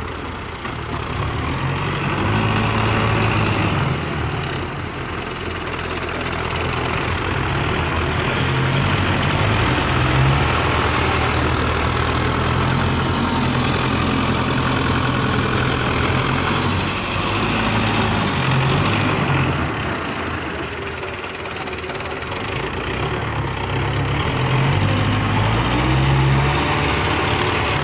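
Belarus tractor's diesel engine working under load as its front blade pushes soil up a bank, its level and pitch swelling and easing with the load several times. It works hardest near the end.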